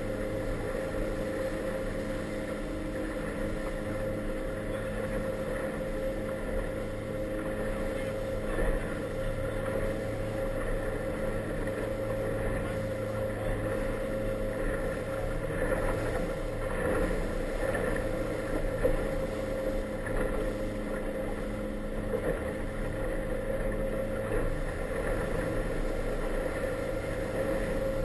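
Inflatable motorboat's engine running at a steady speed: a constant hum made of several steady tones, over the noise of choppy water around the hull.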